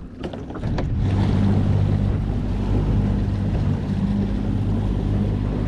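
Outboard motor of a small open fishing boat picking up about a second in, then running steadily at trolling speed, with wind and water noise from the boat moving through the chop.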